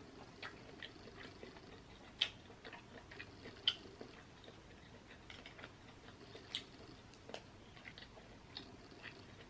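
Faint close-up eating sounds: scattered wet clicks and smacks from chewing and picking at seafood boil, the sharpest about two, three and a half, and six and a half seconds in, over a low steady room hum.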